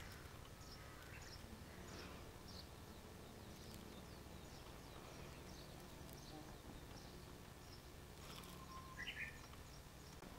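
Faint ambience with a low steady hum, over which a small bird gives short high chirps about twice a second. A brief louder call comes about nine seconds in.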